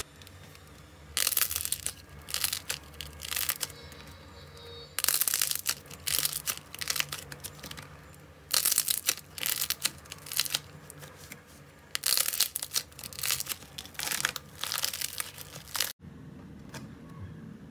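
Slime being squeezed and pressed by hand, crackling and popping in four clusters of bursts a couple of seconds each. Near the end the sound cuts abruptly to a quieter, steadier stretch.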